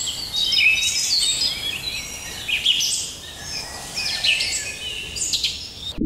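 Many short, high-pitched chirps and whistling calls overlapping, several at once, some sliding up or down in pitch.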